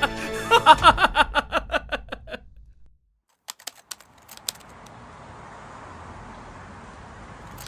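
A man's drawn-out laugh, pulsing about five times a second with an echo, fading out over the first two seconds. After a short silence come a few sharp clicks and a steady faint background hiss.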